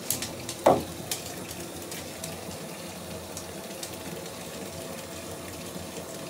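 A bath bomb drops into a filled bathtub with a loud plop a little under a second in. It is followed by a steady watery hiss with scattered faint clicks as the bomb fizzes and colours the water.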